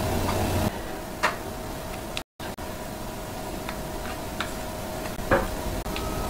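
Wooden spoon knocking against a glass mixing bowl while thick chili seasoning paste is stirred: a few separate clicks, the loudest about a second in and again near the end, over a steady background hum.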